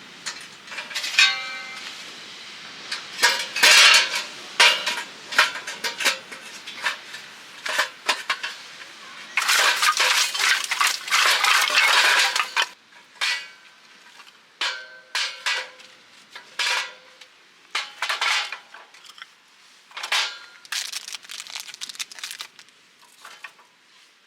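Metal utensils and camp cookware clinking and scraping in a run of irregular knocks with short metallic rings. A few seconds of steady hiss come about ten seconds in.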